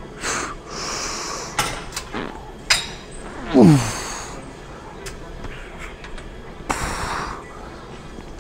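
A weightlifter breathing hard through a heavy lat pulldown set, with forceful exhales and a short grunt that falls in pitch about three and a half seconds in. A few light clicks come from the cable machine.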